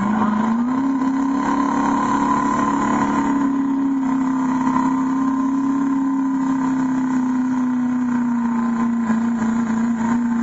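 A pulling truck's engine held at full throttle while it drags a weight sled down the track. Its pitch rises in the first second, then holds high and steady, sagging slightly toward the end as the sled bears down.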